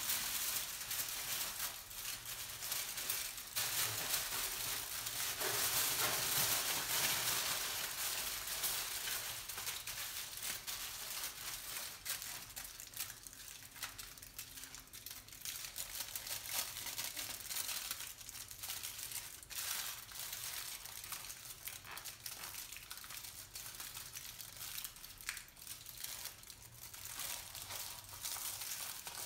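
Aluminium foil crinkling and crackling as hands press and smooth it over a head: a continuous run of small crackles, densest about five to eight seconds in.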